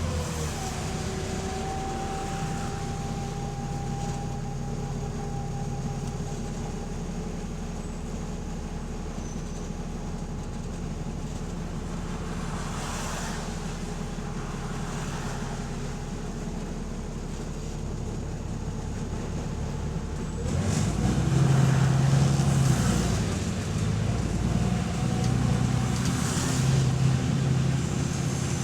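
Diesel bus engine running with an exhaust leak, getting louder and heavier about two-thirds of the way through as it works harder.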